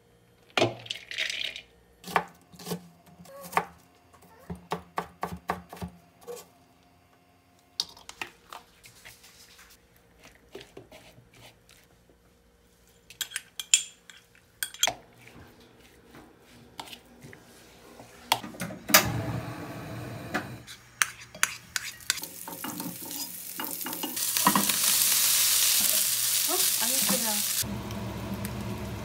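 Utensils clicking and scraping against a glass mixing bowl as rice and chopped carrot are stirred together, then rice sizzling in a hot frying pan as it is stirred and fried, with eggs frying alongside. The sizzle grows loudest for a few seconds near the end.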